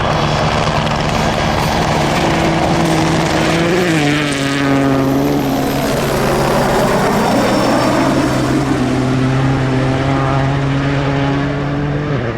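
Helicopter flying past close by: its rotor and turbine sound is loud and steady and drops in pitch about four seconds in as it passes, then carries on at the lower pitch.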